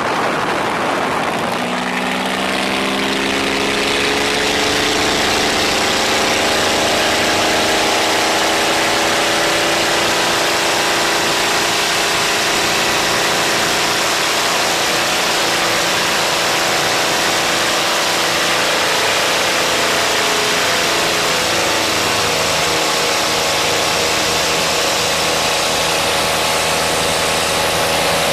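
Light single-engine propeller plane's engine throttling up to full power for takeoff, its pitch rising over the first few seconds and then holding steady through the climb, with wind noise rushing in through the open doorway.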